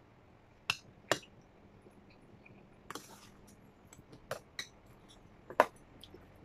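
Metal spoon clinking against a stainless steel bowl: about six short, sharp clinks spaced irregularly, the loudest about a second in and again near the end.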